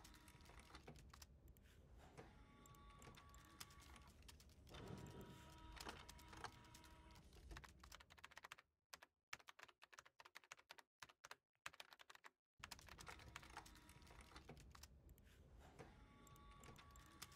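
Near silence with faint, rapid clicking and tapping, dropping out to dead silence several times around the middle.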